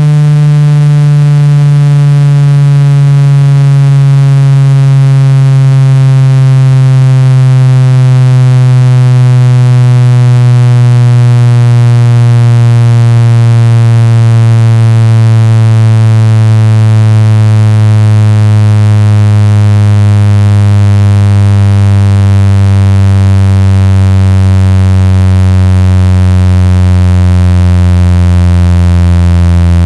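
Loud electronic buzzing tone, low and rich in overtones, sliding slowly and steadily down in pitch: a speaker-cleaning sweep meant to shake water and dust out of a phone speaker.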